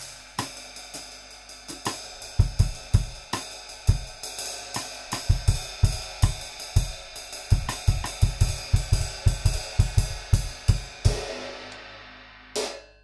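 Istanbul Agop Xist 19-inch Dry Dark Ride cymbal played with wooden drumsticks in a steady ride pattern over a drum kit groove with kick drum. The groove stops about eleven seconds in and the ride rings down. One last hit comes near the end.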